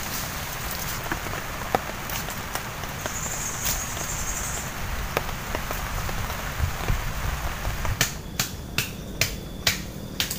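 Steady hiss of forest background with a few scattered small snaps as leafy branches and twigs are handled. About eight seconds in comes a quick run of about seven sharp woody cracks, roughly three a second.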